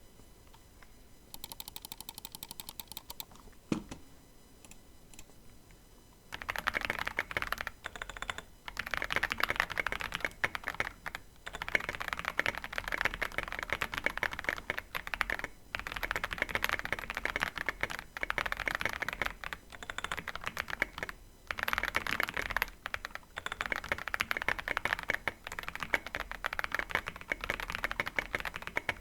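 Fast typing on a custom mechanical keyboard with lubed Boba U4T tactile switches, an FR4 plate and SA keycaps. A single knock comes near four seconds in, and steady rapid keystrokes start about six seconds in, with a few brief pauses.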